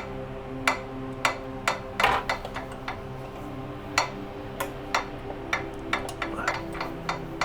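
Schwinn 470 elliptical drive turning with its housing off, a steady low whirr with sharp ticks at uneven spacing, about one to two a second. This is the unexplained click from the machine, which the owner first took for something striking the flywheel and later suspects could be a worn belt or the bearings.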